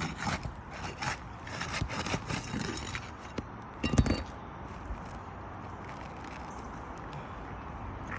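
Asphalt roof shingle being worked loose by hand after its nails are pulled: irregular scraping and rustling with light taps, and one sharp knock about four seconds in, after which only a steady background hiss remains.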